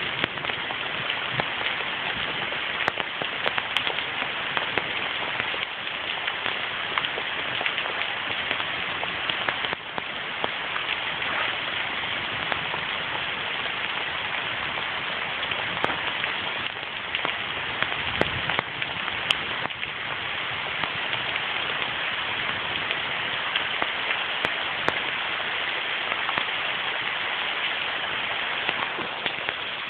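Steady rain: a dense, even hiss dotted with the sharp ticks of single drops.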